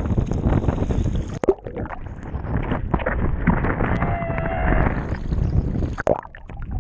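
Sea waves sloshing and splashing against a GoPro held at the water's surface, with wind buffeting the microphone. About a second and a half in, the sound turns abruptly muffled and gurgling as the camera dips into the water, with irregular splashes as it bobs in and out.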